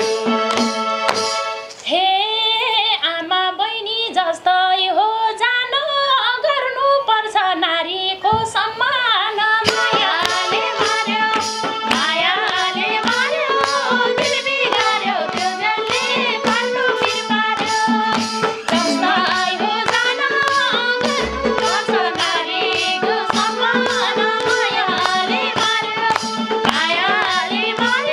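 Live Nepali dohori folk song: a keyboard melody over a steady drone, with a clapped, percussive beat. Women's voices sing over it in the later part.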